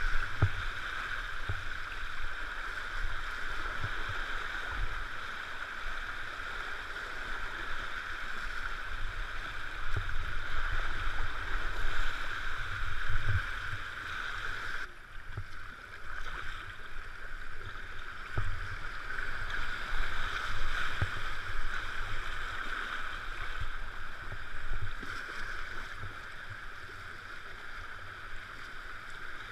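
Rushing whitewater of a river in spate, with water splashing against a kayak's bow and paddle strokes, as a steady rush with irregular low thumps throughout. The sound dips briefly about halfway through.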